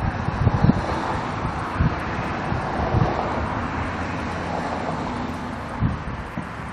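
Wind buffeting the microphone in several low gusts over a steady outdoor background rumble.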